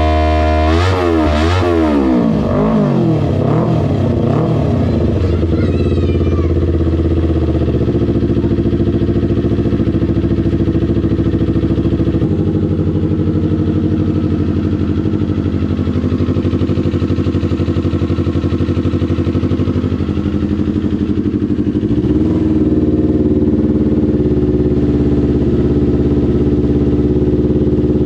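Kawasaki Ninja 250 parallel-twin engine through an R9 GP SS aftermarket exhaust, revved in a few quick throttle blips, then settling into a steady idle.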